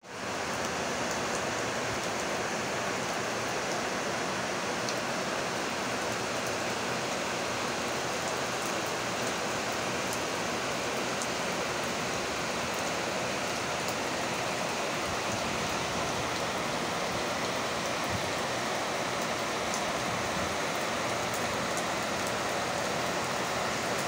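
Heavy rain pouring down steadily: a dense, even hiss with scattered faint drop ticks.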